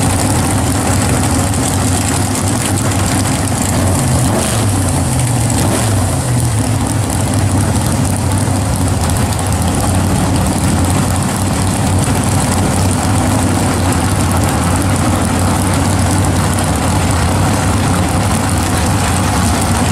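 Two drag-race car engines idling together at the starting line, a steady, loud running sound with a slight waver in pitch a few seconds in, before launch.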